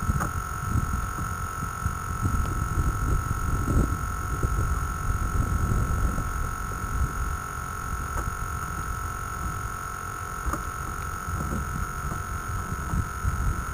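Low, uneven rumble of wind buffeting the microphone, with a steady high-pitched whine underneath.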